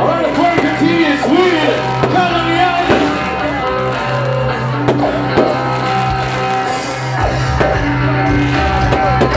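Loud rock-style music with guitar, a voice singing or calling over it in the first two seconds, and a few sharp hits standing out around the middle and near the end.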